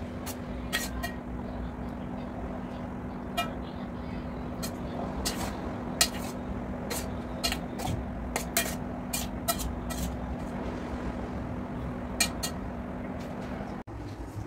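A metal fork clinking and scraping against a stainless steel bowl as chicken liver is stirred in its marinade, in irregular ticks over a steady low hum that cuts off near the end.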